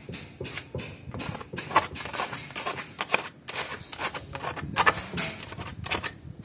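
Scraper scraping and knocking against wall tiles in short, irregular strokes as tile grout is pressed into the joints.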